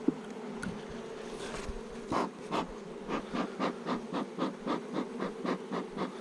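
Honeybees buzzing steadily around an opened hive. From about two seconds in, a bee smoker's bellows is puffed rapidly, about four puffs a second, giving out little smoke.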